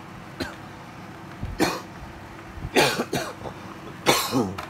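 A person coughing a few times in short, harsh bursts, the last one trailing off with a falling throaty sound.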